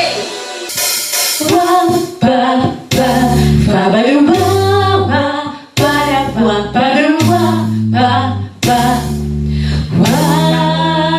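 A woman singing a song over instrumental accompaniment, with held bass notes and regular drum beats under the melody.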